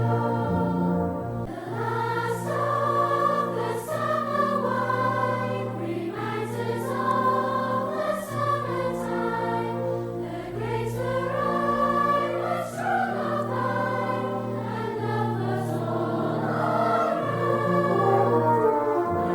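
Background music: a choir singing slow, held chords that change every second or two.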